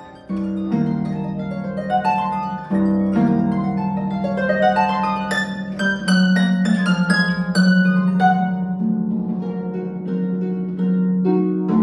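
Solo concert harp being played: ringing low bass notes under rippling plucked figures that climb higher in the middle and settle back down.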